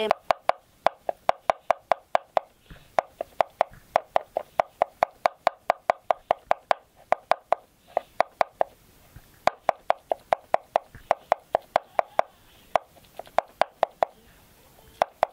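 Knife chopping a vegetable on a wooden cutting board: quick, even knocks, about four a second, broken by a few short pauses.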